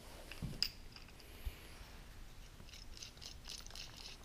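Faint handling noise of small workshop parts worked by hand: a soft knock and a sharp click about half a second in, then a cluster of quick, light ticks and scratches near the end.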